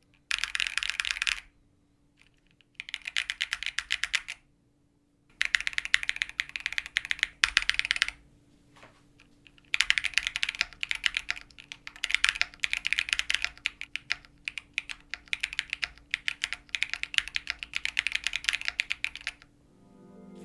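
Typing on a mechanical keyboard fitted with Y&R Studio Veri Peri linear switches (nylon top and bottom housings, modified POM stem), still stock and unlubed. Quick runs of keystrokes come in several bursts with short pauses between them; the last and longest lasts about ten seconds.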